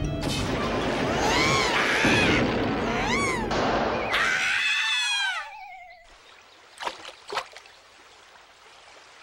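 Cartoon sound effects: a loud rushing whoosh with a wail that rises and falls about once a second, ending in a long falling glide about five seconds in. Then two short taps, over a faint background.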